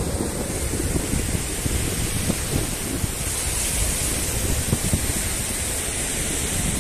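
Wind buffeting the microphone in uneven gusts, over a steady hiss of surf breaking on a sandy beach.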